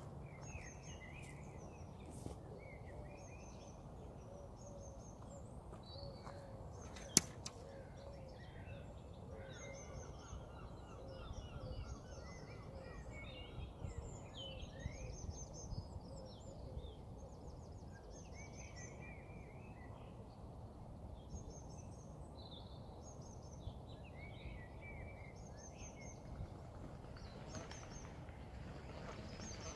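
Small birds chirping and singing throughout over a faint, steady low background rumble, with one sharp click about seven seconds in.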